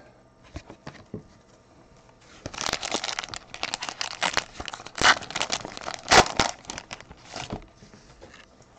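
The wrapper of a trading card pack being torn open and crinkled by gloved hands. It makes a dense run of crackling for about five seconds, loudest a little after the middle, with a few light clicks before it.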